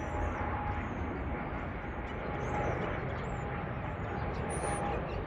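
Jet airliner flying over on its landing approach: a steady engine rumble with a thin, high whine held throughout.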